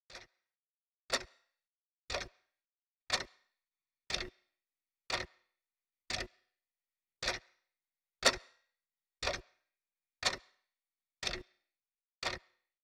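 A clock ticking steadily, one sharp tick a second.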